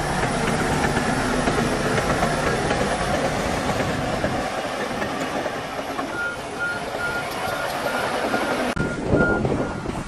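Heavy earthmoving machinery, a bulldozer and dump trucks, running steadily under load. From about six seconds in, a reversing alarm beeps at an even pace of roughly two beeps a second.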